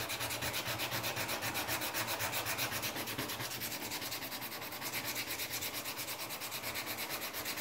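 Sandpaper rubbed by hand over a wooden knife handle in quick, even back-and-forth strokes, finish-sanding to refine the handle's shape.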